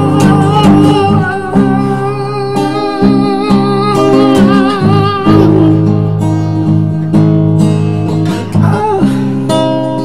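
Acoustic guitar music: plucked and strummed notes under a wavering melody line, a wordless instrumental passage of the song.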